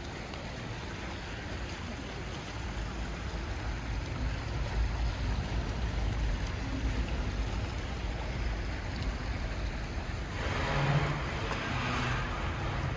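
Wet city street ambience in the rain: a steady hiss of rain and traffic on wet roads over a low rumble. It swells louder about ten seconds in, then eases near the end.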